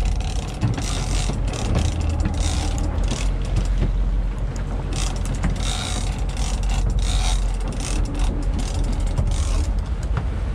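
Big-game trolling reel ratcheting and clicking in fast, irregular runs while a hooked blue marlin is fought on the line, over a steady low rumble.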